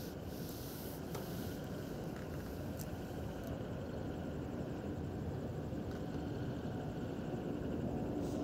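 Sliced onions and dried red chillies frying in mustard oil in a metal kadhai: a faint, steady sizzle, with a few light scrapes of the stirring spoon against the pan. The onions are nearly golden brown.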